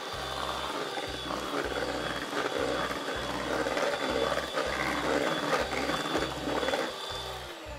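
Electric hand mixer running at speed, its beaters whisking cake batter in a stainless steel bowl with a steady whine and rattle. About seven seconds in the motor is switched off and winds down, its pitch falling.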